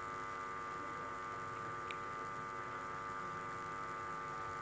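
Steady electrical mains hum from the public-address sound system, a buzz made of many even tones, during a pause in the recitation, with a faint click about two seconds in.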